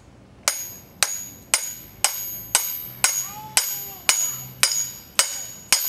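Rear axle shaft and steel black pipe slammed together again and again to drive a new axle bearing onto the shaft. About eleven sharp metallic clanks come evenly, roughly two a second, each with a bright ringing tail.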